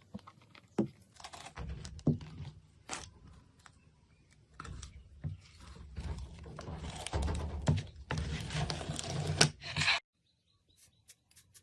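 Slime being squeezed and poked by hand: soft sticky squishing broken by scattered small clicks and pops, busier in the second half. The sound drops out abruptly near the end.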